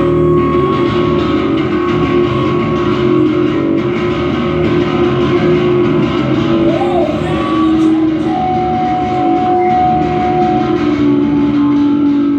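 Rock music with guitar, loud and steady with long held notes, starting abruptly.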